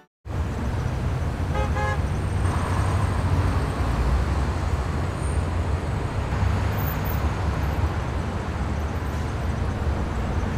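Steady low rumble of road and engine noise inside a car's cabin. About a second and a half in, a car horn gives a brief toot.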